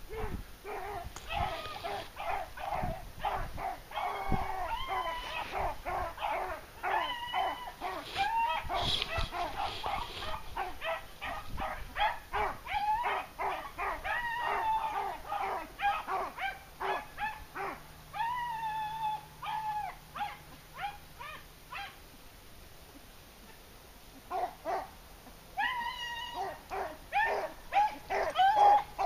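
A pack of beagles baying in quick, overlapping calls, the sound of hounds giving tongue as they run a rabbit. The baying drops away for a few seconds about three-quarters of the way through, then starts up again.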